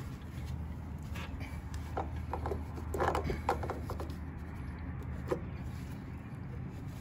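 Light metallic clicks and scrapes of an oil filter wrench being fitted around a lawn mower's spin-on oil filter and worked against it, the loudest cluster about three seconds in, over a steady low hum.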